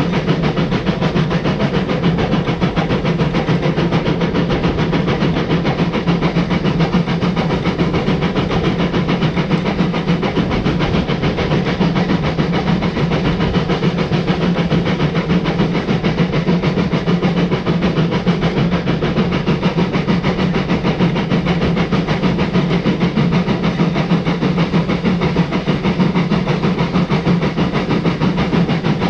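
Narrow-gauge steam locomotive running along the line: a steady hiss and rumble of steam and wheels on rail, heard from the front of the engine.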